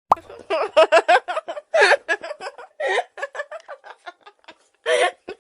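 Young women laughing and giggling in quick, choppy bursts, starting abruptly: a stock comedy laughter sound effect.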